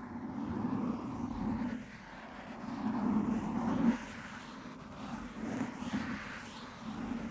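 A microphone being scratched directly, giving a dull, rough scraping noise. Two louder stretches of scratching stop abruptly about four seconds in, followed by softer, uneven strokes.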